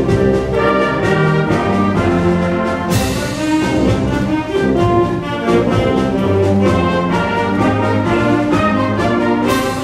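School concert band playing full sustained chords, brass to the fore over woodwinds and low tubas. Two crashes ring out, about three seconds in and again near the end.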